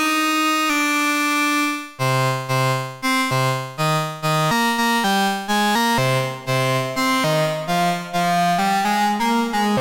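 Waldorf Pulse 2 analog monosynth playing a preset with a reedy tone. It holds one note for about two seconds, then plays a rhythmic sequence of short notes, about two to three a second, that jump in pitch over a deep bass line.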